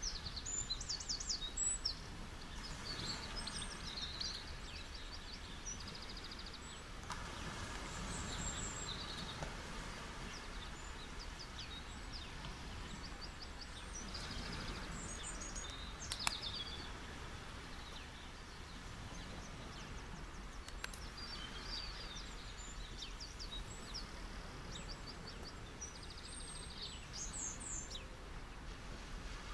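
Steady wash of ocean waves on a beach, with small birds chirping in short high bursts throughout.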